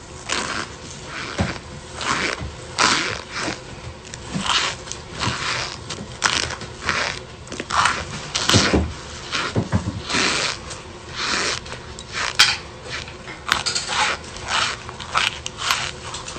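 Chunks of cornstarch being bitten and chewed: a continuous run of sharp crunches, about one or two a second.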